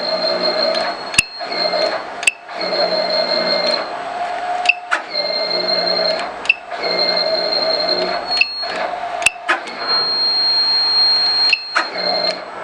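A DCZ70 robot buzzing in repeated stretches of one to two seconds, each broken off by a sharp click, with a thin high whine over a lower hum.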